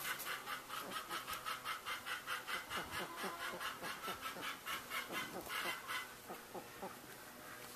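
Faint, rapid run of farmyard fowl calls, about five a second, dying away about six seconds in.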